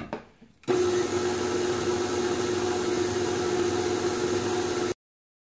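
A knock, then about a second in a KitchenAid Artisan stand mixer's motor starts and runs at a steady pitch with a constant hum, its flat beater turning through thick cookie dough. The sound cuts off suddenly near the end.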